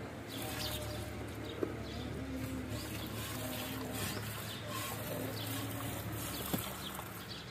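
Hand-milking: jets of milk squirting into a metal bucket, a short hissing spurt about twice a second.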